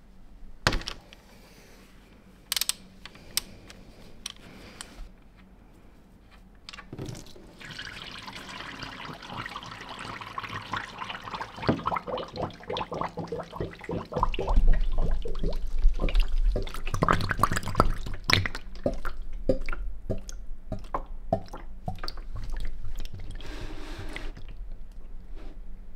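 Warm engine oil draining from a Yamaha Ténéré 700's sump through the drain-bolt hole, pouring and splashing. A few sharp clicks come first, and the pour sets in about seven seconds in, with a low rumble added around the middle.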